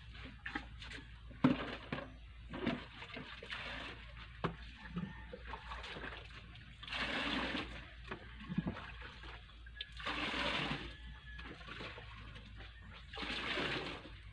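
Water scooped from a drum and poured into a plastic bucket: three pours of about a second each in the second half, after a run of knocks and clunks from buckets being handled, the loudest about a second and a half in.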